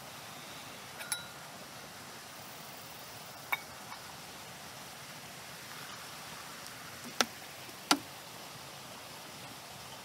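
Stainless steel cups clinking and knocking against the wooden box as they are handled and set down: a handful of sharp clinks, one with a brief metallic ring, the two loudest close together near the end. A steady rushing hiss of a stream runs underneath.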